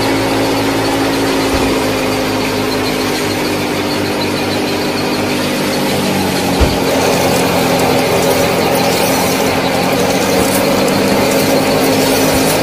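Small motor of a DIY mini tractor and thresher running steadily with a high whine. About six and a half seconds in there is a short knock, and the machine's pitch shifts as it runs on.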